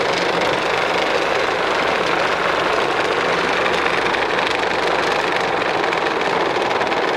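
A round stainless-steel vibrating sifter running with a steady, even noise as it sifts citric acid into a fine, free-flowing powder.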